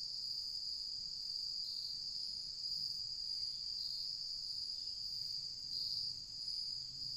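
Chorus of insects in the woods: a continuous, steady, high-pitched trill.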